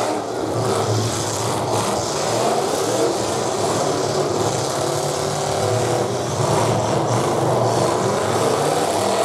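Several full-size demolition derby cars' engines revving hard and rising and falling in pitch as they ram and push into one another, with a few crunching metal impacts over the engine noise.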